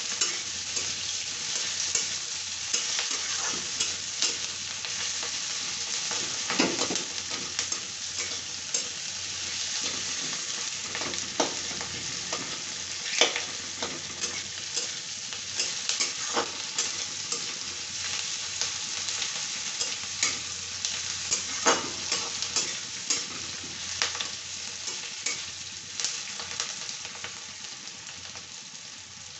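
Sliced onions sizzling in hot oil in an iron kadai, with a metal ladle scraping and clinking against the pan as they are stirred. The sizzling softens near the end.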